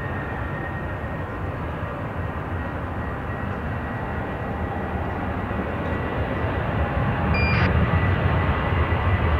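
Jet engines of a Boeing 737-800, CFM56-7B turbofans, at takeoff power as the airliner rolls down the runway. A steady engine rush with a thin high fan whine, growing gradually louder and deeper as the aircraft comes closer.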